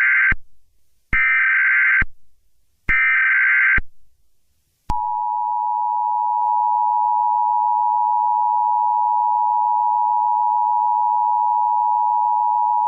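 Emergency Alert System header: three short bursts of SAME digital data tones with brief gaps, the first already under way. About five seconds in comes the steady two-tone attention signal, which announces that an emergency alert, here a tornado warning, is about to be read.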